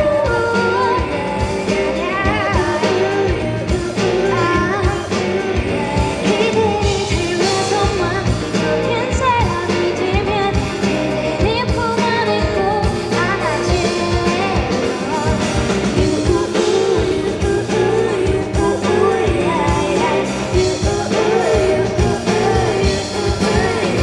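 Live pop song: a woman's lead vocal sung into a handheld microphone over acoustic guitar and a band with a steady beat, amplified through concert speakers.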